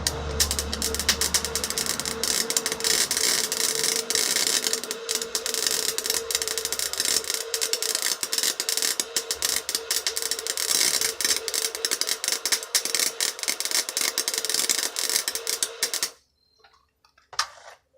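Chicago Electric wire welder laying a bead on its minimum setting: the arc crackles continuously over a steady hum, then cuts off suddenly about sixteen seconds in.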